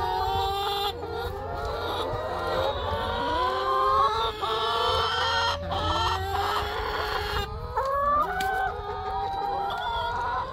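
A flock of brown laying hens cackling and clucking, many calls overlapping, some rising and falling in pitch.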